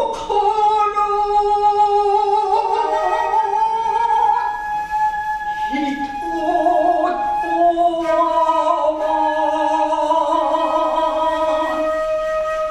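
A woman's voice chanting a tanka in shigin (ginei) style: long drawn-out notes that waver in a vibrato and slide slowly between pitches.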